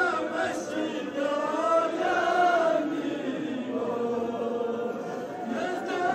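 A crowd of male mourners chanting together in an Ashura mourning lament, many voices overlapping and rising and falling in pitch.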